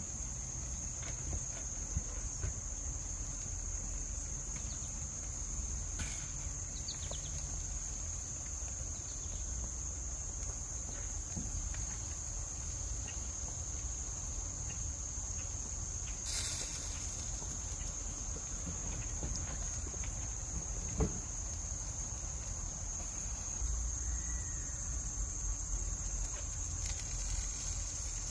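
Insects trilling in one steady, high-pitched drone over a low background rumble, with a brief hiss partway through and a single light knock about three quarters of the way in.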